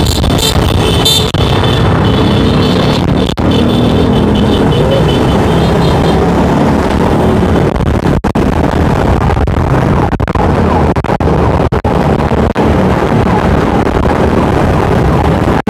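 Many small motorcycle engines running together in a dense moving convoy, a loud continuous engine and traffic din heard from among the riders. A rapid high-pitched pulsing comes and goes during the first six seconds.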